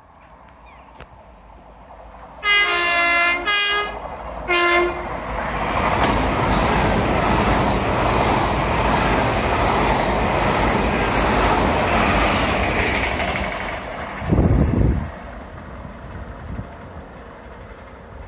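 A train on the main line sounds its horn in three short blasts, then passes with a steady rush of wheel and engine noise that builds, holds for about ten seconds and fades away. A brief low rumble stands out about fourteen seconds in.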